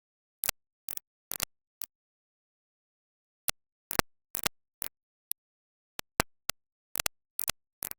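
About fifteen short, sharp clicks or knocks at irregular spacing, with dead silence between them.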